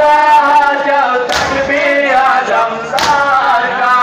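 A crowd of men chanting a Muharram lament (noha) together while beating their chests in unison (matam), the massed strikes landing as loud thumps twice, about a second and a half apart.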